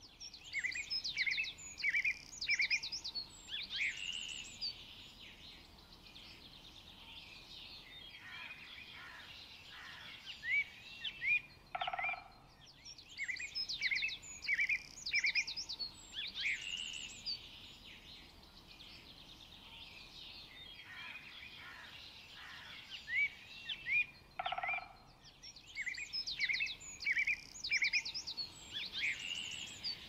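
Forest birdsong: several birds singing in quick high chirps and trills, in bursts with quieter stretches of faint background hiss between them. A short lower call comes about every twelve seconds, and the same passage of song repeats at that interval.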